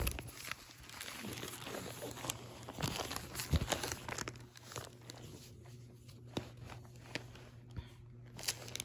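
Paper rustling and handling noise as the pages of a Bible are handled, with scattered soft clicks. It is busiest in the first few seconds and sparser after.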